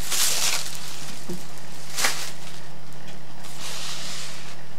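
Rustling and handling of paper wrapping and a handmade fabric wall hanging: a soft burst near the start, a sharper one about two seconds in and another near the end, over a steady low hum.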